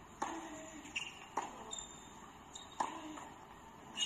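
Tennis ball bounced several times on a hard court by a player preparing to serve: single sharp knocks with a short ring, spaced irregularly a second or more apart. A last knock near the end comes as the serve is struck.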